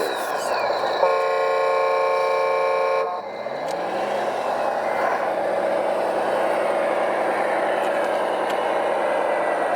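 A truck horn sounds one steady blast of about two seconds, starting about a second in and cutting off abruptly. Straight after it, an engine revs up and settles into a steady run.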